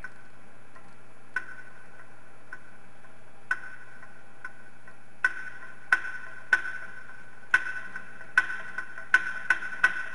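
Sharp ticks, each ringing briefly at the same high pitch, over a faint steady hum. Only two or three come in the first few seconds; from about five seconds in they come faster and faster.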